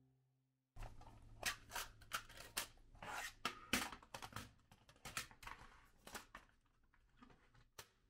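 Metal watercolour paint tins and palettes being picked up, set down and slid around on a table: a run of sharp clicks, knocks and scrapes that starts about a second in and thins out near the end.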